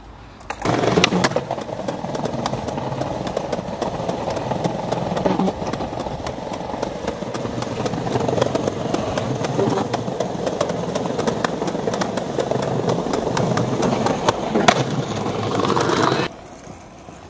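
Skateboard wheels rolling over rough pavement and ledges: a continuous gritty rumble with many small clicks and knocks from the board. It starts about a second in and cuts off suddenly near the end.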